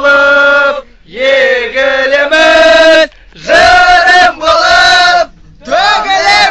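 A group of young men singing a Kazakh patriotic song loudly in unison, close to shouting, in phrases of a second or two with short breaks between them.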